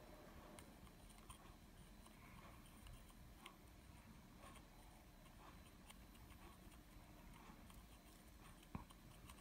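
Near silence: room tone with a few faint ticks and one sharper click near the end.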